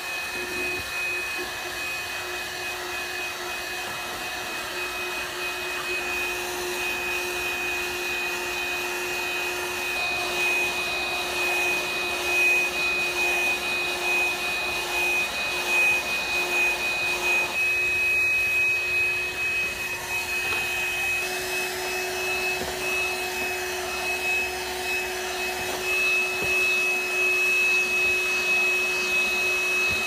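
THISWORX 12-volt handheld car vacuum running steadily as its nozzle is worked over carpet, a steady high motor whine over the rush of air. The tone shifts slightly about two-thirds of the way through.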